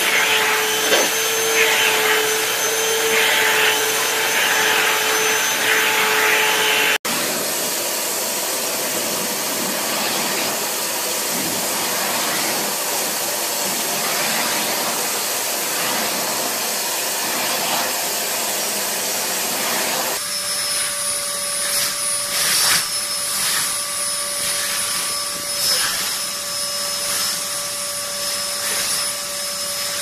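Vacuum cleaners running steadily, a rush of air with a constant motor whine, with the nozzles held to cats' fur. The sound changes abruptly about seven seconds in and again about twenty seconds in as one vacuum gives way to another.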